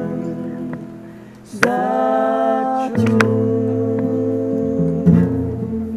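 Background music: strummed acoustic guitar chords ringing out, with a fresh strum about one and a half seconds in.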